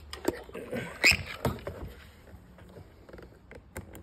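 Small plastic clicks, taps and scrapes as the glass of a next-gen Ford Ranger side mirror is handled and its heater element connectors are unplugged; the sharpest click comes about a second in.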